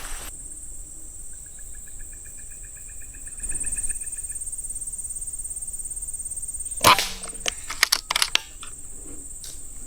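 A single sharp air-rifle shot about seven seconds in, followed by a quick run of small clicks and knocks. Earlier there is a faint, rapid pulsing trill, over a steady high insect drone.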